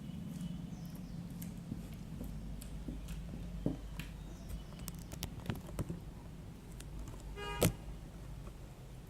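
Homemade slime being kneaded by hand: scattered small sticky clicks and pops over a steady low hum. A short squeaky tone comes about seven and a half seconds in.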